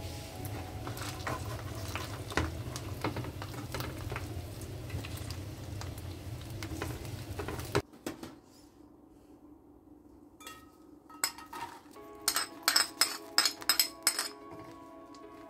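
Chicken thighs sizzling as they fry in oil in a pan, with a spatula scraping and knocking as they are turned. About eight seconds in the sizzle cuts off sharply, and later a spoon clinks repeatedly against a china saucer and a small steel saucepan as barberries are tipped in.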